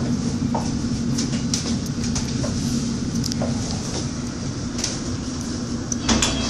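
London Underground District line train heard from inside the carriage: a steady rumble with a low motor hum and scattered clicks of the wheels over rail joints as it pulls into a station. A brief louder burst of noise comes near the end.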